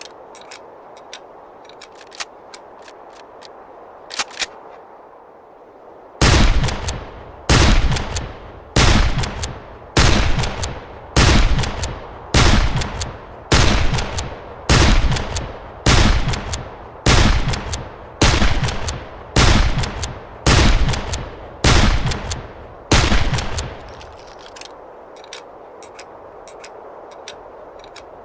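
Henry lever-action rifle firing about fifteen shots in a steady string, one a little more than a second apart, each with a ringing tail. A few faint clicks come before the first shot.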